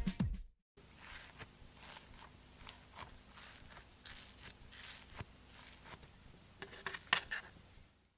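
Faint, irregular clicks and rustles of small objects being handled, over a low steady hum.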